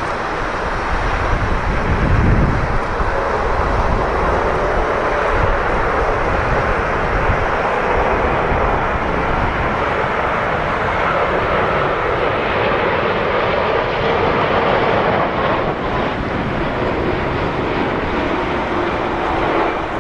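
Jet airliner engines running steadily with a faint whine in the roar, as the aircraft approaches to land in a strong crosswind. Wind buffets the microphone with uneven low rumbles.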